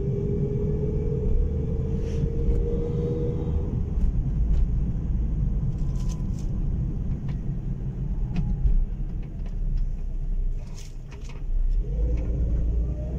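Car engine and road noise heard inside the cabin while driving, a steady low rumble; the engine note rises as the car accelerates in the first few seconds and again near the end.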